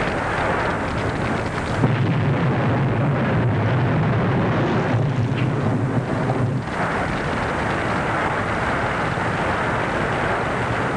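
A large oil fire burning: a dense, steady rushing noise, with a heavier low rumble from about two seconds in that eases off just before seven seconds.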